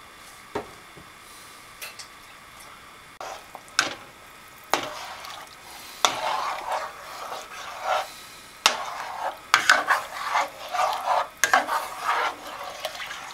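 Spoon stirring thick soup in a stainless steel pot, scraping and knocking against the pot's sides and bottom. A few separate knocks come first, then the stirring turns steady and continuous about six seconds in.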